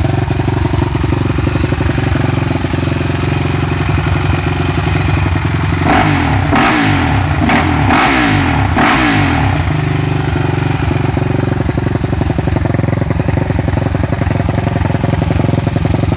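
Suzuki LTR 450 quad's single-cylinder four-stroke engine idling through a Yoshimura RS5 full exhaust. About six seconds in it is revved in several quick throttle blips, then settles back to a steady idle about ten seconds in.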